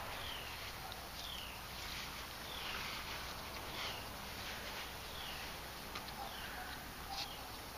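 A bird calling over and over: a short, high falling note about once a second, over a faint steady outdoor hiss.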